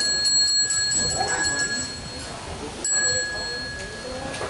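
Buddhist ritual bell struck and left ringing with a clear, high, steady tone. The earlier ring fades out in the first second, and the bell is struck again about three seconds in, marking the start of the recitation of the Buddha's name.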